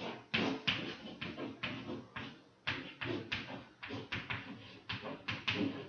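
Chalk writing on a blackboard: an irregular run of sharp taps and short scratching strokes as a line of algebra is written out, with a quick cluster of strokes near the end.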